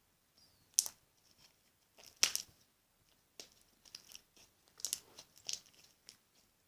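Slime being squeezed and stretched by hand, giving a run of irregular crackling pops, the sharpest about a second and two seconds in.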